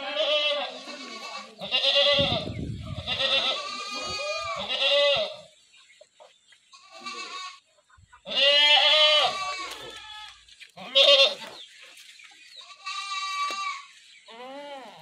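Goats bleating over and over, about eight wavering calls, some long and drawn out, with short gaps between them. A brief low rumble comes about two seconds in.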